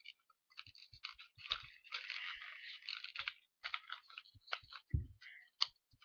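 Sheets of paper rustling and crinkling as they are folded and pushed into each other, in short crackles with a longer rustle about two seconds in and a soft knock about five seconds in.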